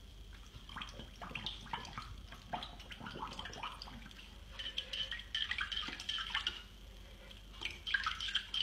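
Water splashing and sloshing in a dog's water bowl as a puppy paws at a toy bone floating in it, in short irregular splashes.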